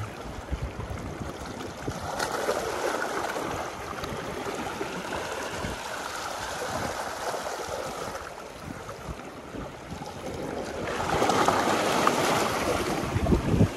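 Sea waves washing onto a beach, the surf swelling about two seconds in and again near the end.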